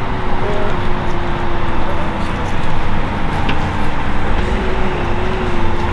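Airbus EC135 helicopter running on the ground, its twin Turboméca Arrius 2B2 turboshaft engines and rotor making a loud, steady noise with a slightly wavering tone over a low rumble.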